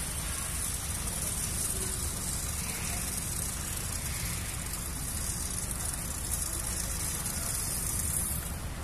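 Wave soldering machine running: a steady high hiss over a low hum, easing off near the end.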